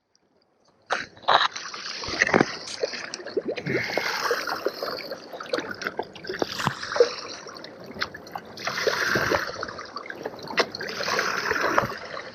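Water splashing and trickling at the boat's side as a black grouper is held in the sea to revive it before release, starting about a second in, with irregular small splashes throughout.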